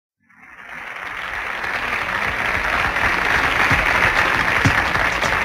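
Audience applauding, fading in over the first couple of seconds, with a few low drum strokes starting under it in the second half.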